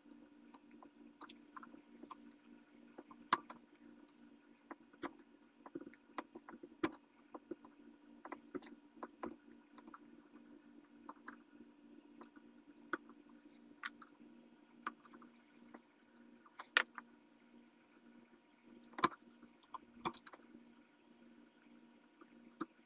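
Hand chisel paring thin shavings from a wooden rifle handguard: irregular small clicks and scrapes as the edge bites and the chips break off, a few sharper ones spread through, over a steady low hum.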